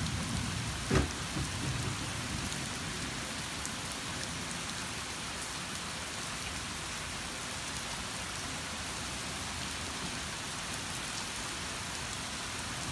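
Heavy rain pouring onto a street and pavement, a steady even hiss. There is one sharp knock about a second in.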